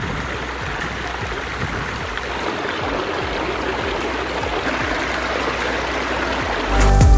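A pondless waterfall running, with water splashing steadily over the stones. Electronic music comes back in near the end.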